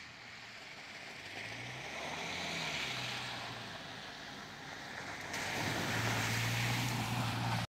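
Subaru Outback driving on a muddy forest track: the engine rises and falls in pitch over the tyre noise, then about five seconds in a sudden, louder rush of splashing as the car ploughs through a mud puddle.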